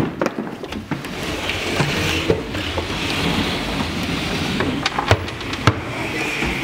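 Wooden stage boxes being pushed across a stage floor: continuous scraping with scattered knocks and thumps, the loudest knock a little before the end.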